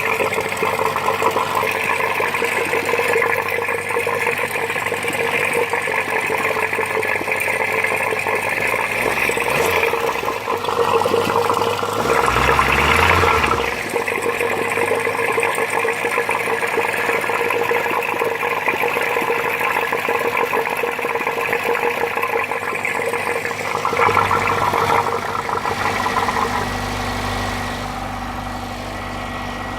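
Fiat Punto 55's four-cylinder petrol engine running with a weird noise the owner suspects is a fault, revved up and back down twice around the middle, louder again briefly near the end, then settling.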